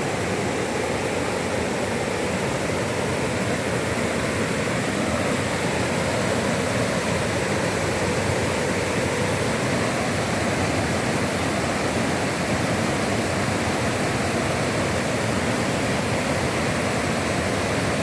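Steady rush of flowing water, unbroken throughout.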